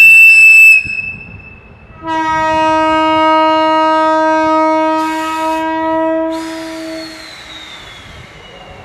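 EF64 electric locomotive sounding its horns: a shrill high-pitched whistle blast that cuts off about a second in, then after a short pause a long, lower typhon air-horn blast of about five seconds, with bursts of air hiss near its end.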